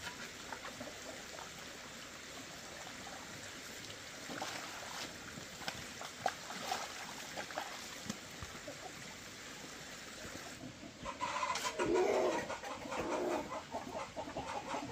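Water running and trickling with a few light knocks. About eleven seconds in, chickens start clucking, louder than the water.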